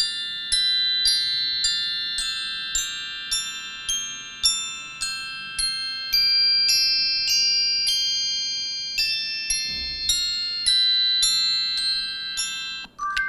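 Google Pixel 3a XL ringtone playing: a high, bell-like mallet melody with a struck note about every half second, each ringing out. Near the end it stops and a different chiming ringtone begins.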